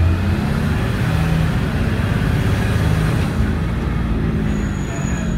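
Engine of a Dennis Eagle refuse truck running while it drives, heard from inside the cab, its pitch shifting up and down. A faint high whine comes in near the end.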